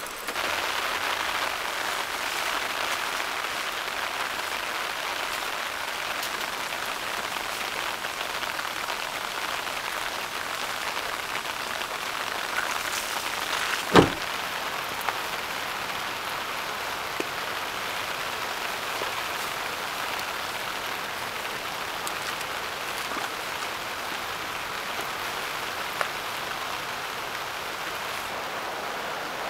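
Steady rain falling, with one sharp loud bang about halfway through as the rear hatch of a Daihatsu Hijet kei van is shut.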